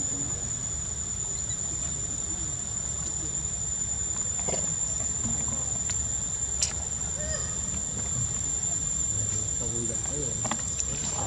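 Insects droning in a steady, thin high-pitched tone, over a low steady rumble, with a sharp click just past halfway.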